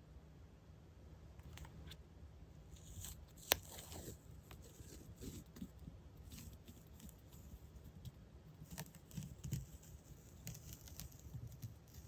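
Paper goods being handled: rustling and crinkling with scattered light clicks, and one sharp snap about three and a half seconds in, over a faint low hum.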